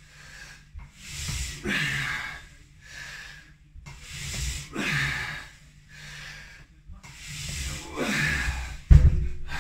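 Hard breathing and the rub of the cable running over the pulleys of a home lat pulldown machine, surging with each pull about every three seconds. A low thump comes near the end.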